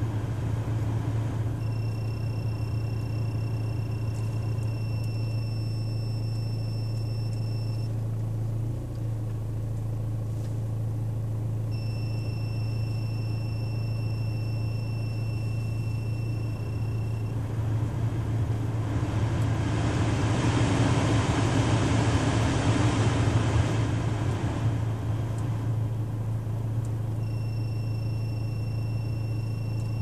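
BMW E90 climate-control blower fan running over a steady low engine hum. A thin high whine comes and goes in stretches of several seconds, the kind of strange noise the owner traced to the blower fan under the windshield. About two-thirds of the way through, the air rush swells for several seconds as the fan speed is stepped up, then drops back.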